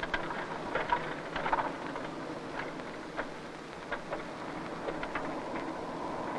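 Steady rushing background noise with scattered clicks and crackles, and faint muffled voices briefly about a second in.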